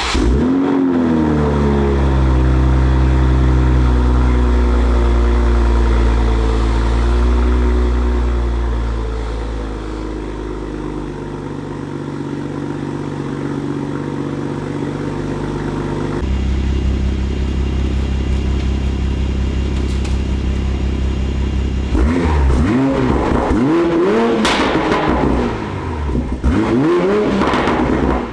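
2020 Toyota Supra's turbocharged engine, fitted with a Forged Projects valved exhaust and a catless downpipe, starting up with a flare and settling into a steady idle whose pitch slowly drops. Near the end the engine is revved several times in quick blips, each rising and falling.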